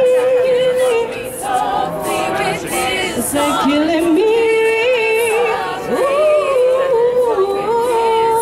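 A cappella group singing: a woman's lead voice holds and slides between long notes over the group's backing voices, with no instruments.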